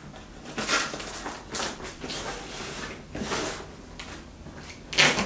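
Kitchen knife slicing through packing tape on a cardboard box: several short scratchy strokes, with rustling cardboard.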